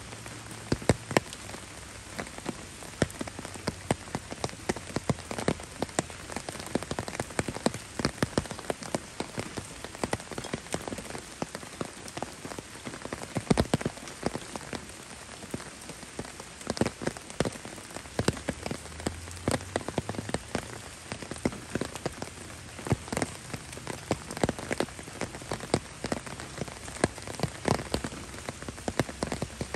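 Steady rain falling, an even hiss with many irregular sharp close drop hits.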